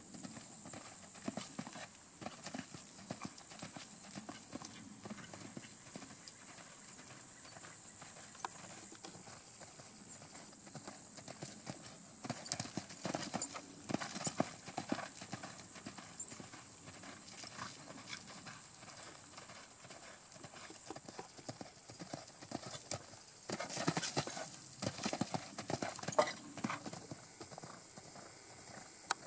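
A horse's hooves beating on sand arena footing at the canter, a quick run of soft thuds. The hoofbeats grow louder in two stretches, about halfway through and again a few seconds before the end.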